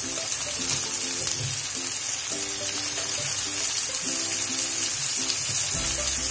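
Shredded cabbage, carrot and capsicum sizzling in hot oil in a wok, a steady high hiss, with background music playing over it.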